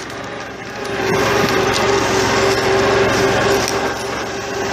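Massey Ferguson 1433 compact tractor's diesel engine running steadily under load as it drags a log out of a muddy hole, getting louder about a second in.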